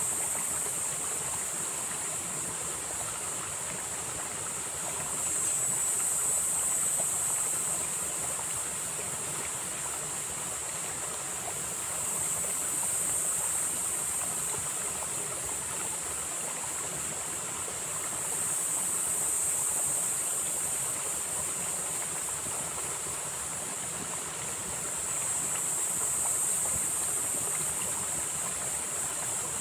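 Small mountain valley stream running, a steady rush of water. A high hiss swells and fades about every six or seven seconds.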